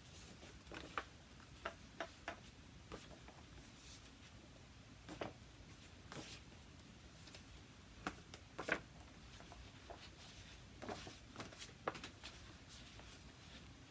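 Faint, irregular taps and rustles of paper letter cards being shuffled in the hand and set against a whiteboard easel's plastic ledge.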